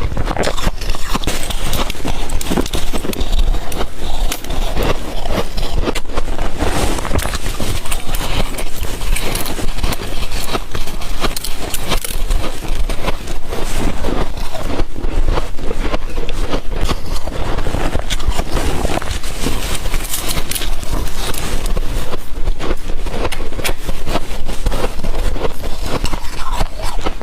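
Close-up crunching and crackling of shaved ice being chewed, dense and unbroken.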